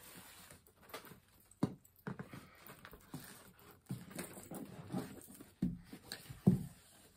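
A cardboard gift box handled on a wooden table while a ribbon is wrapped around it: soft rustling and several dull knocks. The loudest knocks come near the end, as the box is turned over and set down.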